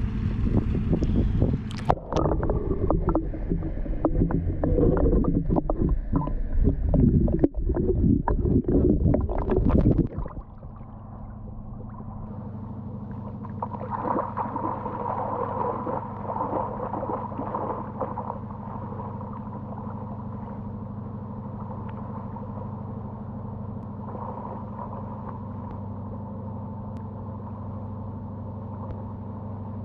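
River water rushing and splashing close around the microphone for about ten seconds. It then gives way suddenly to the steady drone of a river motor ship's engine with a low, even hum.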